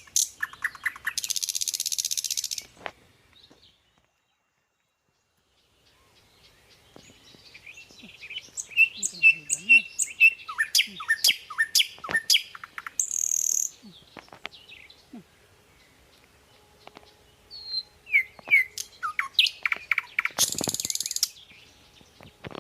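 Small birds chirping and calling in quick, high, short notes, some sliding downward, in two busy spells, with two short hissing bursts among them. The sound cuts out completely for about two seconds early on.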